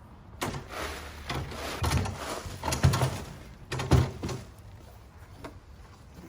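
Black bark mulch being worked by hand: rustling, scraping bursts with dull thumps, about four of them in the first four seconds, then quieter.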